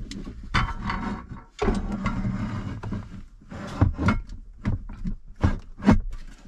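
Steel console-safe lid scraping and knocking against the plastic walls of a truck's center console as it is worked into place: scraping in the first half, then a series of short sharp knocks.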